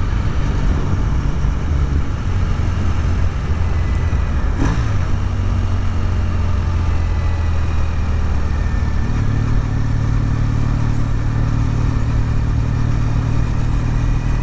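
Triumph T100 parallel-twin engine running at road speed, heard from on the motorcycle over road and wind noise. The engine note dips briefly and recovers about five seconds in, and steps up a little about nine seconds in.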